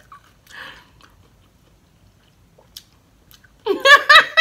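A long quiet stretch with a faint breath-like noise about half a second in. Near the end comes a woman's short wordless vocal sound, a pitched hum that bends up and down, as she lifts a drink bottle to her mouth.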